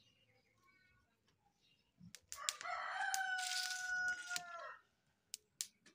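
A rooster crowing once, one long crow of about two and a half seconds starting a little over two seconds in. A few sharp clicks come before it and near the end.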